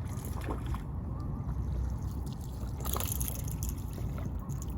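Water splashing as a small hooked fish is reeled in to the bank, with a sharper splash about three seconds in, over a steady low rumble of wind on the microphone.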